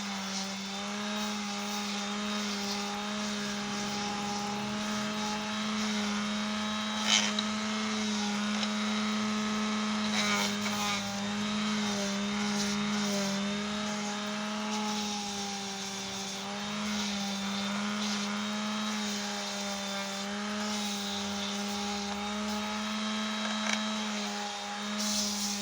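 Small electric sander running steadily with a slightly wavering hum as small wooden pieces are sanded, a hiss of abrasive on wood over it, and one sharp knock about seven seconds in.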